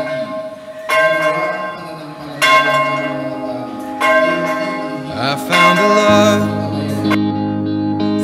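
Church bell tolling, struck about every second and a half, each stroke ringing on over the last. A low held music tone comes in about three-quarters of the way through.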